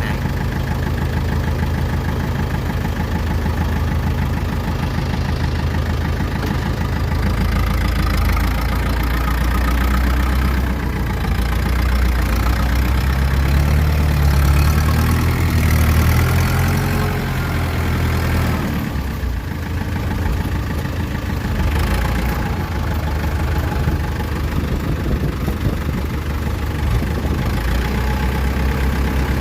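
Kubota DC-93 combine harvester's diesel engine running steadily while towing a broken tracked tiller. It grows louder and deeper for several seconds midway, dips briefly, then settles back.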